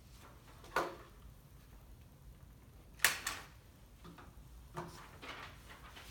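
A few scattered clicks and knocks from objects being handled, the sharpest about three seconds in, over quiet room tone.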